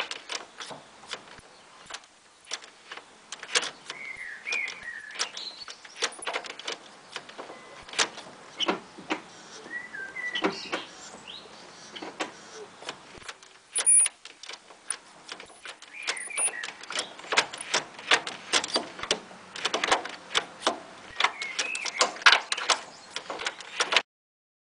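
Gear shift linkage of a T23 Toyota Celica squeaking as the shifter is worked: short squeals that bend up and down in pitch, mixed with many clicks and clunks. The sound cuts off near the end.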